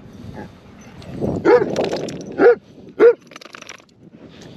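A dog barking three times in quick succession, each bark short and loud.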